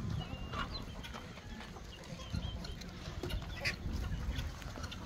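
A flock of free-range chickens and other poultry clucking and peeping at feeding time, in short scattered high calls over a low steady rumble.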